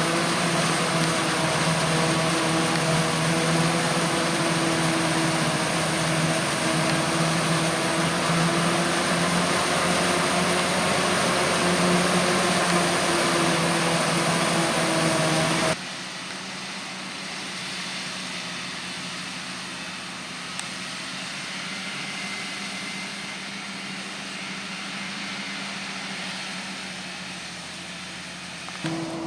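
Large diesel engines of maize harvesting machinery (forage harvester and tractors) running steadily with a low engine hum. About halfway through the sound drops abruptly to a quieter, more distant machinery drone.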